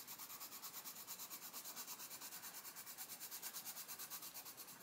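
Crayola Colours of the World coloured pencil shading on colouring-book paper: soft, scratchy pencil strokes going back and forth in a quick, even rhythm.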